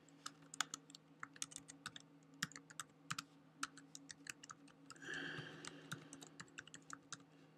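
Computer keyboard being typed on: irregular keystrokes in quick runs as a server name is entered, over a faint steady low hum.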